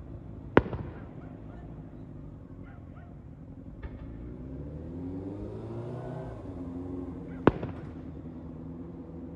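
Aerial firework shells bursting with two sharp booms about seven seconds apart, each followed by a short crackle. A fainter thump falls between them, over a low steady rumble.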